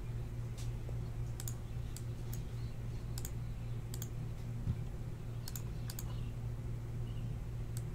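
Steady low hum with about nine sharp clicks scattered irregularly over it.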